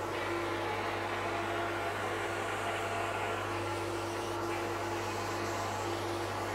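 Powder coating gun spraying powder with a steady hiss of air over an even machine hum.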